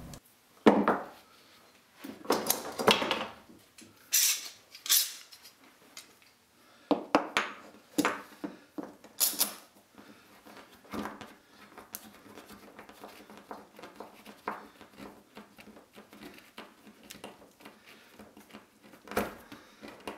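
Steel bar clamp being set across a glued plywood joint and tightened: scattered metallic clanks and clicks from the bar and sliding jaw, with lighter handling knocks between.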